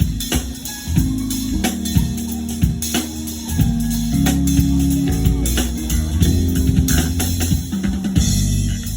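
Background music: a song with a steady drum beat and bass line.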